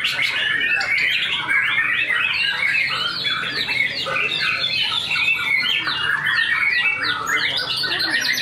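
White-rumped shamas (murai batu) singing in competition: a dense, unbroken stream of fast, overlapping whistles, trills and harsh notes, several birds at once.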